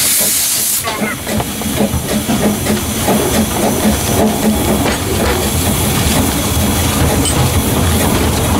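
Narrow-gauge steam locomotive: a loud hiss of steam cuts off suddenly about a second in, then the engine runs on with a rhythmic exhaust beat and the rattle of the moving locomotive.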